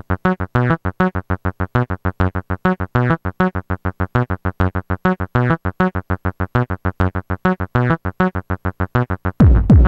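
Electro track intro: a synthesizer riff of short, staccato notes repeated quickly and evenly, several a second. Near the end a deep kick drum comes in.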